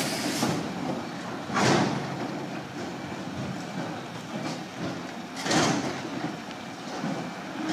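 Scania road train reversing slowly, its diesel engine running low under the clatter of the trailers, with two short bursts of air hiss from the brakes, about two seconds and five and a half seconds in.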